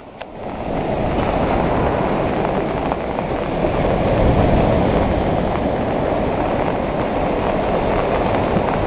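Sea waves breaking and washing up a beach: a steady, rushing surf that builds over the first second and is loudest around the middle.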